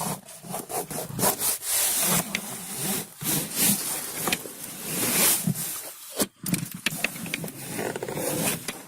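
Small putty knife scraping and rubbing as a rubber seal strip is pressed into the gap between the dashboard and the windshield, in repeated irregular strokes.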